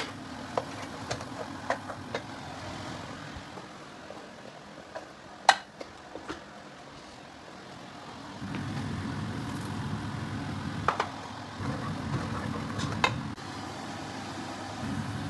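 Steady low kitchen drone that grows louder about eight seconds in, with scattered clicks and knocks of a pot, lid and utensils being handled. The sharpest knock comes about five and a half seconds in.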